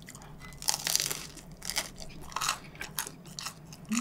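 Crunchy bites into a Chicago-style pizza crust, then chewing close to the microphone: a string of irregular crunches, the loudest about a second in.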